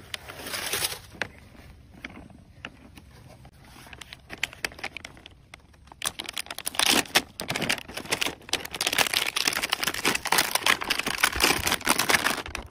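Clear plastic blister packaging on a cardboard toy card crinkling and crackling as hands bend it and pull it open. A short rustle about half a second in, then dense crackling with many sharp ticks from about six seconds on.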